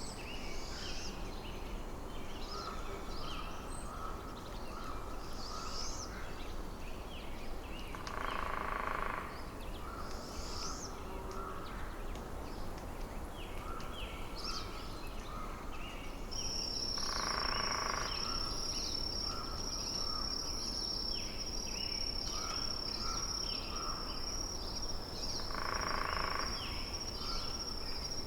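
Forest ambience of many small birds chirping, with a louder, harsher call about every nine seconds. From a little past halfway a steady high-pitched trill holds on, over a low steady background rush.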